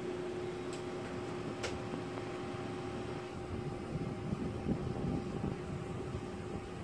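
Steady hum of a running room appliance with a constant low tone, two faint clicks in the first two seconds, and irregular low bumps in the second half.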